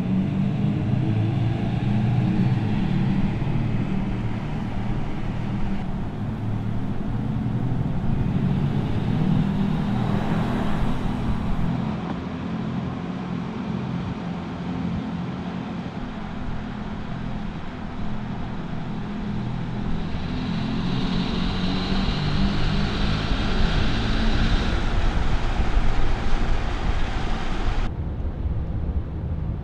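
Mercedes-AMG EQS 53 electric car driving: a steady low hum with road noise. It changes abruptly a few times, between separate takes.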